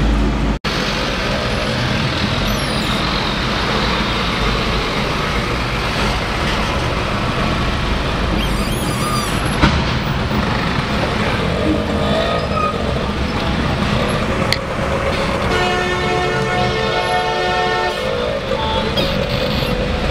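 Busy road traffic heard from inside a moving car, with one long vehicle horn blast of about two and a half seconds a little past the middle.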